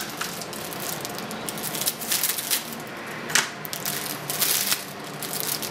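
Packaging being rummaged through by hand: irregular rustling and rattling with sharp clicks and knocks, a few louder bursts in the middle.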